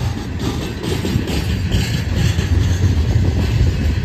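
Loaded coal hopper cars of a freight train rolling past on the rails: a loud, steady, deep rumble of steel wheels on the track, with some higher metallic noise in the middle.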